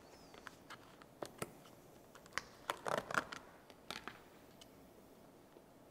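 Faint scattered clicks and light clinks of kitchen utensils and small prep bowls being handled around a stainless steel mixing bowl, with a small cluster of taps about three seconds in.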